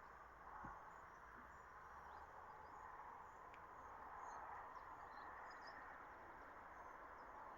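Near silence: a faint outdoor background hush with scattered faint high chirps.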